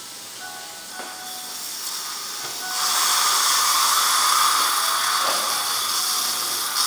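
Surgical implant handpiece drilling the implant site in the upper jaw, its steady whine mixed with the hiss of saline irrigation and surgical suction. The hiss gets clearly louder about three seconds in.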